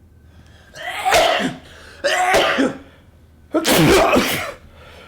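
A person sneezing loudly three times in a row, each sneeze voiced and drawn out, the first with a short build-up before the burst.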